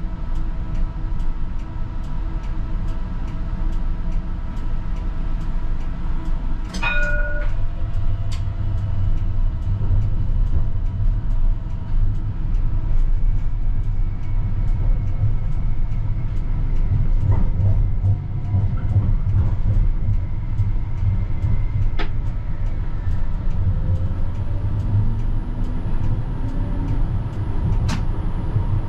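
CAF Urbos 100 tram running on street track: a steady rumble of the wheels on the rails with a constant electric hum. A brief ringing note sounds about seven seconds in, and there are a few sharp clicks later on.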